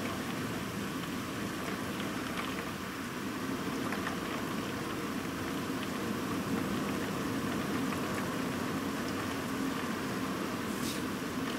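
Heavy rain pouring steadily, with scattered drops ticking sharply on nearby surfaces.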